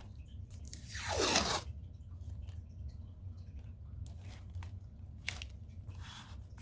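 A strip of blue painter's tape pulled off the roll with a ripping sound that falls in pitch, about a second in, then a few faint crinkles and taps as the tape is handled and pressed down.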